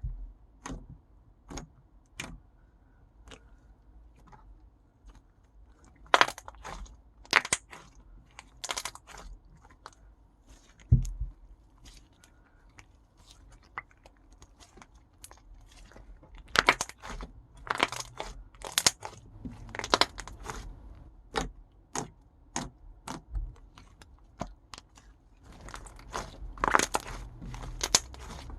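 Slime being handled and squeezed, giving sharp crackling pops and clicks, scattered at first and then coming in dense flurries.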